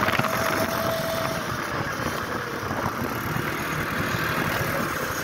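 ATV engine running steadily while the quad is ridden across beach sand.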